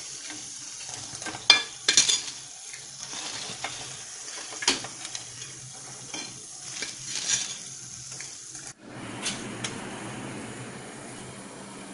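Urad dal vadas sizzling in hot oil in a nonstick kadai, with a slotted metal spatula clinking and scraping against the pan as they are lifted out. The sharpest clinks come about a second and a half to two seconds in and again near five seconds; after about nine seconds only a steady sizzle remains.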